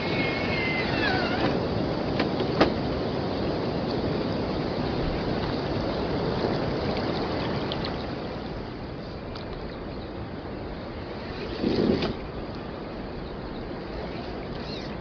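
Steady rush of river water, with a sharp click about two and a half seconds in and a short low thump near twelve seconds.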